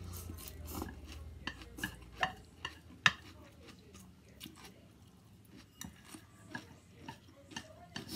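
Chopsticks and a plastic fork clicking and scraping against a plate as food is picked up, a scatter of sharp ticks with the loudest about three seconds in.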